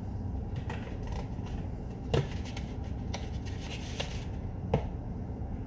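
Light handling noises from paper plates being pulled from a stack: a few sharp clicks and taps, the loudest about two seconds in, with soft rustling over a steady low background hum.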